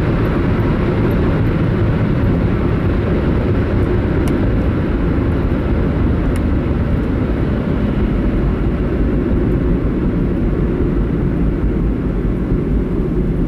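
A moving car's engine and road noise heard from inside the cabin: a steady low rumble.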